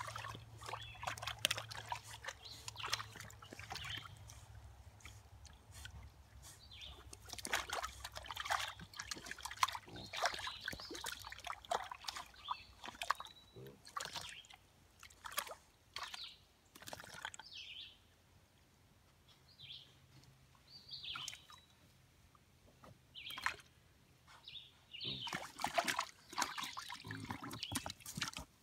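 Water sloshing and splashing in a tub as two piglets shift about in it, in irregular short bursts. Louder, busier splashing near the end as one piglet climbs out over the rim.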